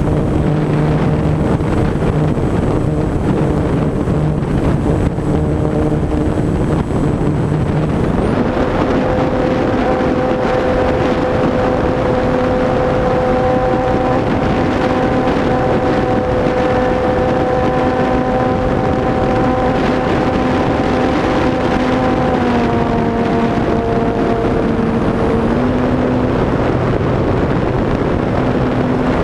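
HobbyZone Radian RC glider's electric motor and folding propeller running under power, heard from on board as a steady whine that steps up in pitch about eight seconds in, dips a little for a few seconds near the end, then rises again.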